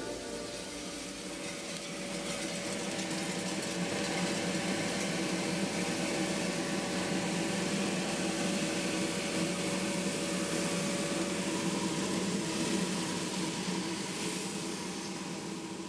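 Coffee roaster's cooling tray running: roasted beans churned by the stirring arm over a steady fan whir with a faint constant hum, easing down near the end.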